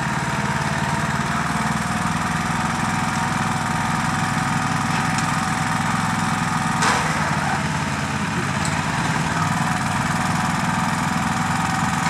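Merry Tiller's small petrol engine running steadily under load as the tiller works the garden soil, with one brief clack about seven seconds in.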